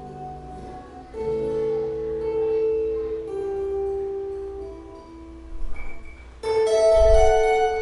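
Two acoustic guitars playing an instrumental duo: slow held chords swell about a second in and die away, then both guitars come in loud and bright about six and a half seconds in.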